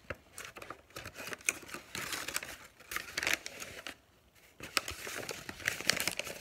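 Paper sandwich wrapper crinkling and rustling as it is handled, in uneven bursts of crackles with a short pause a little past the middle.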